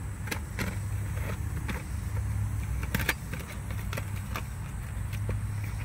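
Light clicks, scrapes and rustles from a phone being handled and moved about under a car, over a steady low hum.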